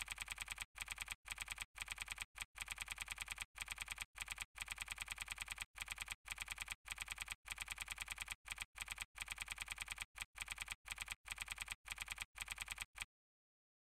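Typing sound effect: a quick, quiet run of key clicks with short pauses, as text is typed out on screen, stopping shortly before the end.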